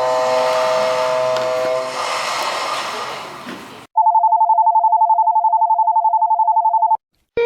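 Korean subway train-approach signals. First, the current Busan Metro downbound approach chime: several steady electronic tones held over platform noise, fading out about four seconds in. Then, for about three seconds, a clean electronic trill that pulses about ten times a second like a phone ringer: the old Daegu Metro upbound approach signal.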